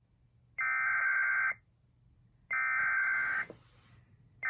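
Emergency Alert System SAME header: short, loud bursts of digital data tones, each just under a second long and about a second apart, two complete bursts and a third starting at the very end. The data bursts signal the start of an emergency alert.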